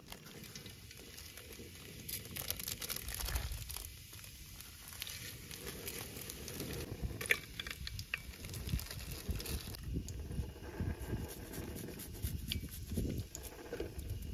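Whole spices crackling and sizzling in hot oil in a steel pot, the tempering of a dal tadka: an irregular patter of small pops over a low steady rumble.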